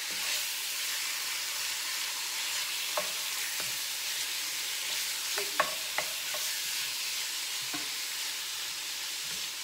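Chicken, onions and bell peppers sizzling in a cast-iron skillet, a steady hiss, while a wooden spatula stirs them and knocks against the pan several times, sharpest just past halfway.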